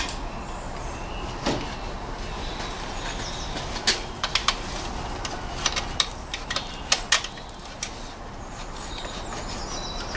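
A cluster of sharp clicks and taps in the middle, from hands and tools working on the ABS wheel speed sensor wiring under the wheel arch, over a steady background hiss. Faint, short high bird chirps come now and then.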